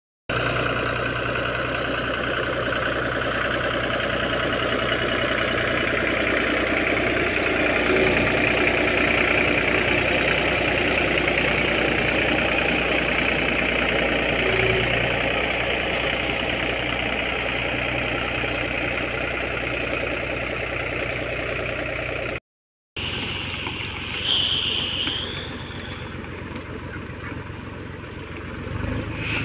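Mahindra tractor's diesel engine running steadily under load as it pulls a seed-drill planter. The sound drops out briefly about three-quarters of the way through and comes back quieter.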